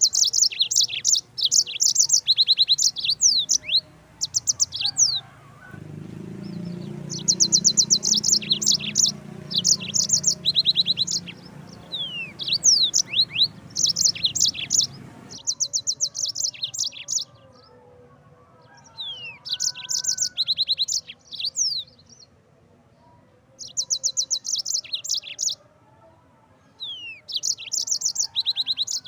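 Yellow-fronted canary (Mozambique canary) singing: phrases of rapid, high trilled notes, each a second or two long, repeated with short pauses between them.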